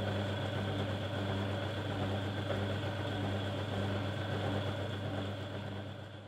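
Myford ML7 lathe running steadily under power, a constant machine hum with a thin steady high tone over it, fading out near the end.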